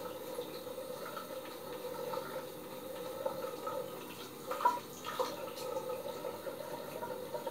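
Bathroom tap running steadily, with two light knocks about halfway through, as a cartridge razor is rinsed at the sink during a head shave.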